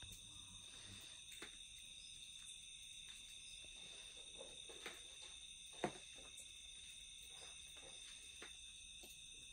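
Faint chorus of night insects, crickets or katydids, a steady high trilling at several pitches. A few soft taps or knocks break in, the loudest about six seconds in.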